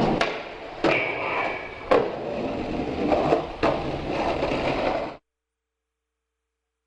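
Skateboard wheels rolling on concrete and asphalt, with several sharp clacks of the board on pop and landing and a brief high scrape about a second in. The sound cuts off suddenly about five seconds in.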